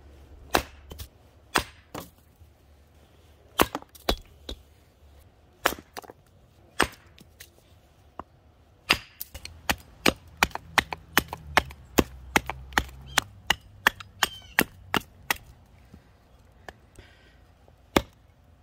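Hatchet blade chopping into the end of a stick held against a wooden stump, carving a spear point: sharp wooden knocks, spaced irregularly at first, then a quicker run of about three strokes a second from about halfway in, with a last stroke or two near the end.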